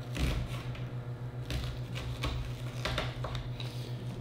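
Onion being sliced by hand on a plastic cutting board: a handful of irregular crisp cuts and taps of the blade through the onion layers onto the board, over a steady low hum.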